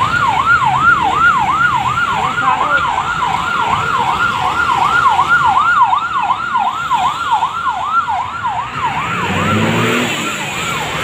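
Electronic siren sounding in a fast yelp, its pitch dipping and rising about three times a second without a break.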